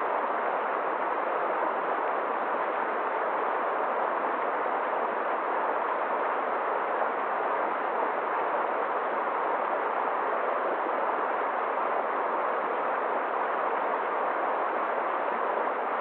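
Forest brook running water: a steady, even rush with no breaks or separate splashes.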